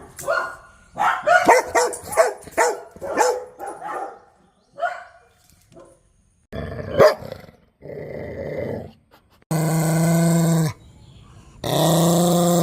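Dogs barking: a quick run of sharp barks, then a few single barks. Near the end come two long, steady vocal sounds held on one pitch.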